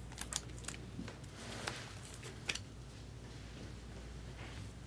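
Faint rustling and a few light clicks from trading cards and foil pack wrappers being handled, mostly in the first couple of seconds.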